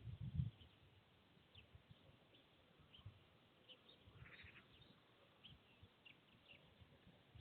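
Quiet outdoor ambience with faint, scattered chirps of small songbirds in the distance. A brief low rumble sounds in the first half second.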